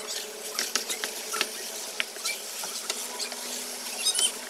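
Wooden spatula stirring and scraping a thick mass of sticky glutinous rice in a nonstick pan, giving irregular wet clicks, smacks and scrapes as the rice is cooked down until stiff and chewy. A short high chirp sounds near the end.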